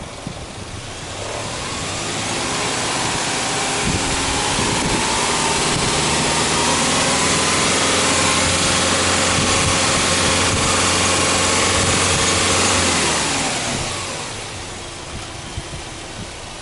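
Subaru Legacy 2.5GT's EJ25 turbocharged flat-four, heard from the front with the bonnet open, revved up from idle about a second in. It is held at a steady raised speed for about ten seconds, then let fall back to idle near the end.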